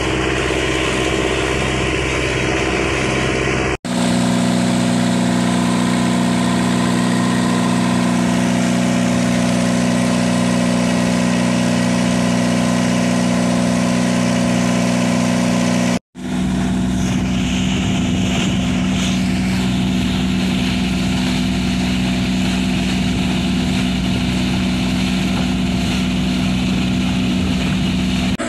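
Mitsubishi 4DR5 four-cylinder diesel inboard engine pushing a cargo flatboat at steady cruising speed, a constant drone with rushing water and wind over it. The sound cuts out abruptly for an instant twice, about 4 and 16 seconds in.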